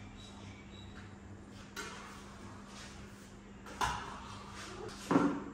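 A few short knocks and scrapes of hand tools and materials being handled, against a steady low hum; the loudest comes just before the end.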